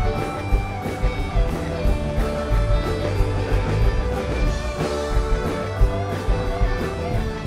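Live rock band playing an instrumental passage: electric guitars over organ and a steady drum beat.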